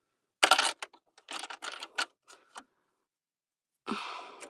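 Clicks and clatters of hard plastic and metal parts and small tools being handled at an opened sewing machine: a louder clatter about half a second in, a quick run of clicks a second later, and a scraping rustle that fades near the end.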